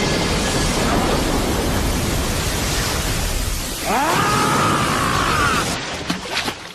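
Cartoon sound effect of a huge wave of water rushing and surging, a steady loud roar of water. About four seconds in a rising, ringing swoosh sweeps over it, and a few sharp splashing hits come near the end.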